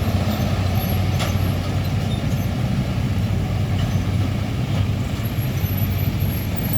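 Heavy diesel truck engine running steadily on the road, a low hum with traffic noise and a short click about a second in.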